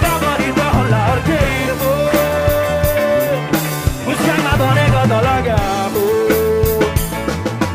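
Male vocalist singing a Nepali song live over a band with drums, holding one long note about two seconds in and a shorter held note near the end.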